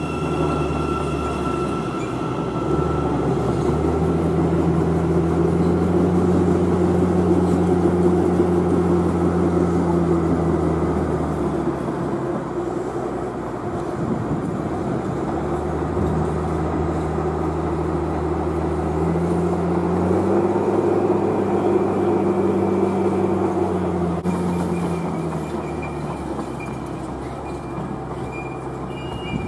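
Electric multiple-unit passenger trains running through a railway station: a steady low electric hum over the rumble of wheels on rail, swelling twice. Near the end a higher steady whine comes in as a Class 365 electric unit approaches.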